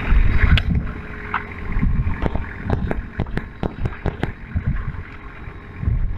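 Longtail boat under way: a low rumble of water and wind buffeting the microphone, with faint steady engine tones underneath. From about two seconds in there is a run of sharp knocks and splashes.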